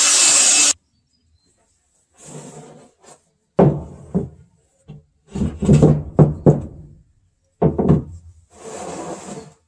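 A cordless blower runs briefly and cuts off under a second in. Then heavy planed wooden beams are shifted on a stack: a series of knocks and thuds as timber bumps timber, with scraping slides between them.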